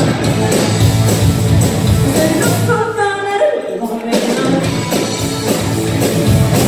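A live rock band playing at full volume, with a steady drum beat, bass and some singing.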